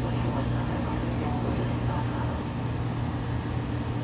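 Seibu 2000 series electric train running, heard from inside the car: a steady running rumble with a low hum. The car's wheels have flat spots.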